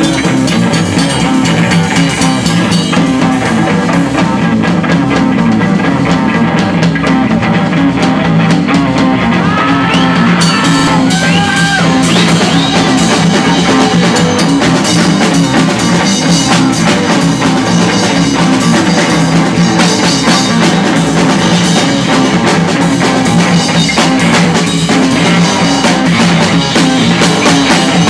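Loud live rock band playing: a drum kit with cymbals and an electric guitar through an amplifier, at a steady driving beat.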